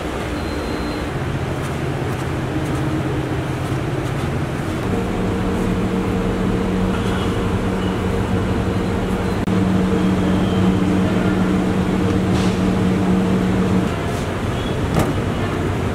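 Steady engine hum over street traffic noise. The hum steps up in pitch about five seconds in and fades out a couple of seconds before the end.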